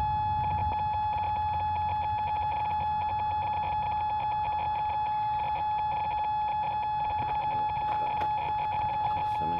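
A drone's electronic buzzer sounding one continuous high tone, steady in pitch, over a low rumble. It is the kind of warning tone that flags a fault, here one the operator clears by restarting the drone to reset its GPS settings.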